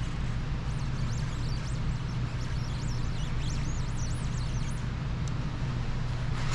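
A steady low hum, with thin, wavering high-pitched squeaks for the first four seconds or so as the excess paint protection film is cut and peeled away from the mirror.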